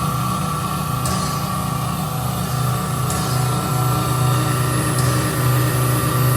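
Ingersoll Rand IRN 15 K CC HV electric air compressor running steadily, with a low hum and a steady higher tone, and a faint tick about every two seconds.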